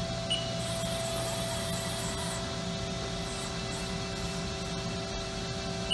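Haas ST-20Y CNC lathe running with its spindle turning: a steady hum with several held tones, while the cutting tool is jogged in to touch off the face of the part.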